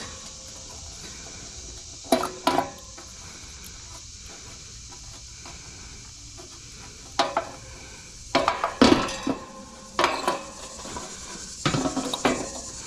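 A steel adjustable wrench clinking and rattling against the nut and sheet-metal grille at the hub of an air-conditioner condenser fan guard as the nut is worked loose. The sound comes in several short bursts of metal clanks a second or more apart.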